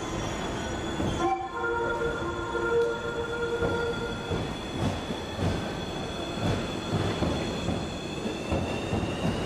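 E351 series limited-express electric train pulling away from a platform: the wheels knock over the rail joints faster and faster, and a high motor whine rises in pitch as it gathers speed. A steady tone sounds for about three seconds, starting about a second in.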